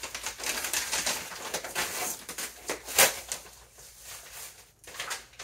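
Plastic wrapping crinkling and rustling as it is pulled off a costume belt by hand, with a sharp, louder crackle about three seconds in.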